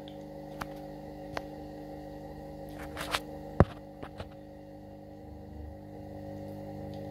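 Bridgeport-type power feed motor driving the milling machine's knee (Z axis) up at slow speed: a steady hum. A few clicks sound over it, one sharp click a little after three and a half seconds.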